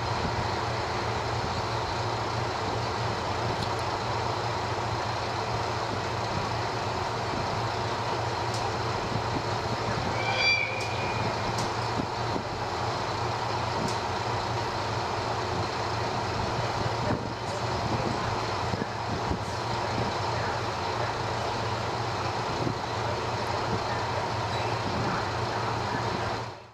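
KiHa 40 series diesel railcar running and pulling away from the platform, its engine a steady hum over a constant rushing background. About ten seconds in there is one short high-pitched tone.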